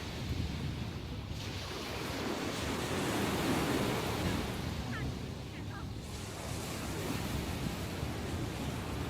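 Sea waves surging and washing onto the shore after a typhoon, a continuous wash that swells and eases.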